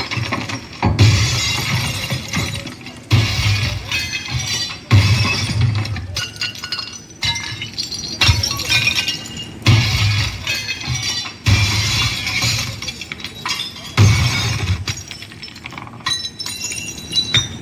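Loud, bass-heavy music played over a car audio system being tested, with deep bass hits and sharp crashing, glass-like hits every second or two.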